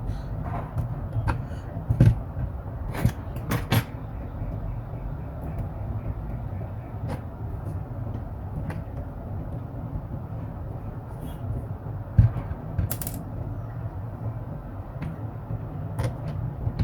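Scattered clicks and knocks from handling a laptop and tools on a workbench: a cluster about 2 to 4 seconds in, another about 12 to 13 seconds in and one near the end, over a steady low hum.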